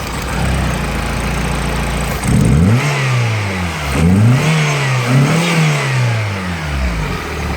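Peugeot 106 GTI's 1.6-litre four-cylinder engine idling, then blipped up in revs three times and dropping back to idle near the end. The owner puts the misfire down to the cylinder 4 coil pack arcing to the cylinder head.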